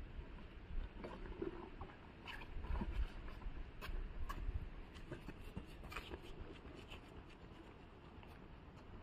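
Rustling and scraping of a cloth bag being rummaged through and handled, with scattered light clicks and a low rumble a few seconds in.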